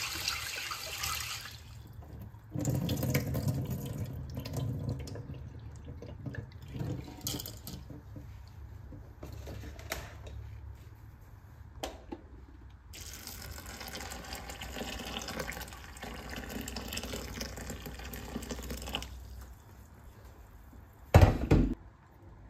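Kitchen tap running into a bowl of dried beans in a stainless steel sink, the water splashing through the beans as they are rinsed, in spells that come and go. A loud knock near the end.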